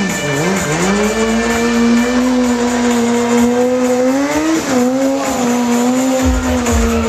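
Sport motorcycle engine held at high revs during stunt riding. Its pitch stays steady, with short dips that recover quickly soon after the start and again about two-thirds of the way through.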